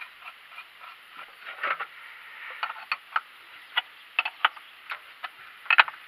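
Light metallic clicks and clinks of a spanner on the nut of a YaMZ-238 diesel's oil centrifuge cap as it is fitted and tightened by hand, a dozen or so at irregular intervals, the sharpest pair near the end.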